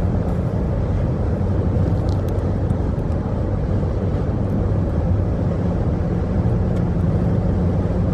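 Steady drone of a car's engine and road noise, heard from inside the moving car.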